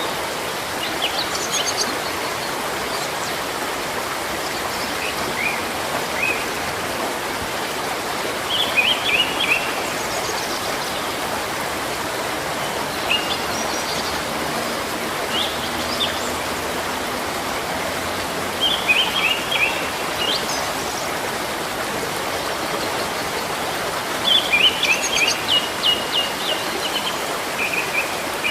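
Steady running water with small birds chirping over it in short phrases of quick, high notes every few seconds; the busiest phrases come about a third, two thirds and seven eighths of the way through.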